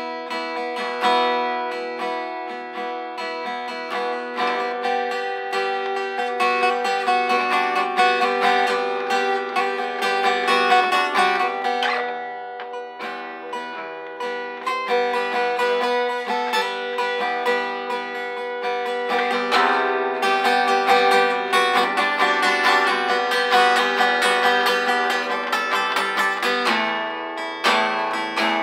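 Acoustic guitar strummed, ringing chords, with a dip in loudness about halfway through.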